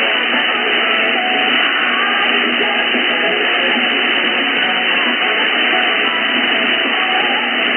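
Shortwave reception from an ELAD FDM-DUO SDR receiver: steady static hiss through a narrow, telephone-like audio passband, with faint wavering tones and a weak station buried in the noise.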